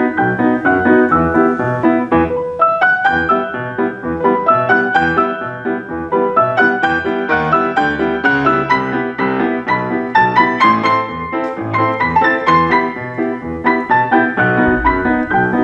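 Grand piano played four hands: a busy, unbroken stream of quick notes across the keyboard.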